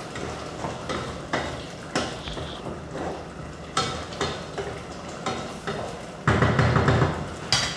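Wooden spoon stirring beef stew at the boil in a stainless-steel pot, scraping and knocking against the pot's sides and bottom over the bubbling liquid. A louder stretch of scraping and clatter comes about six seconds in.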